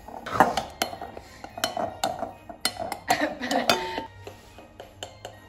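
Metal spoon clinking and scraping against a glass mixing bowl while stirring a dry mix of flour, cocoa and salt, in quick irregular clinks.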